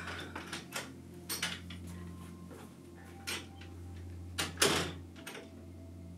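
A front door with a rim night latch being unlatched, opened and pulled shut: a run of clicks and knocks, the loudest about four and a half seconds in, over a steady low hum.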